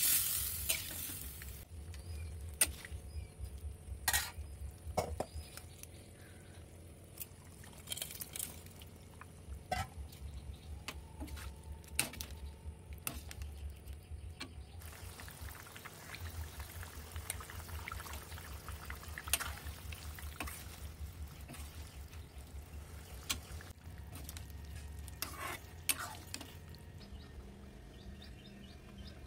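A metal ladle stirring a thick curry simmering in a steel pan: soft liquid stirring and bubbling, with scattered clinks of the ladle against the pan and a low rumble underneath.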